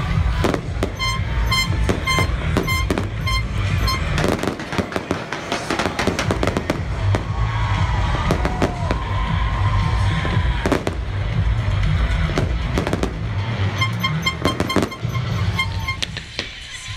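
Fireworks show: aerial shells bursting in a dense, rapid barrage of bangs and crackles over a continuous low rumble, thinning out near the end.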